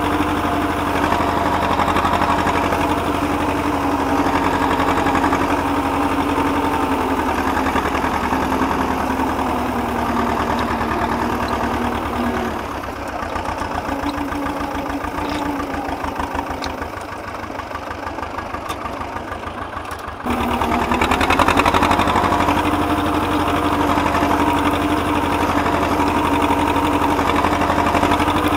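Vladimirets T-25 tractor's two-cylinder air-cooled diesel running steadily under load while pulling a plough through stubble. About twelve seconds in the engine note falls to a lower, slower beat, then comes back up abruptly about twenty seconds in.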